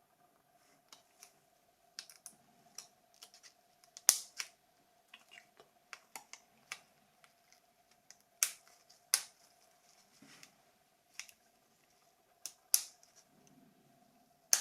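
Small plastic phone parts of a Nokia 2760 clicking and tapping as they are handled and fitted together, in irregular sharp clicks with a few louder snaps about four, eight and a half, nine and thirteen seconds in.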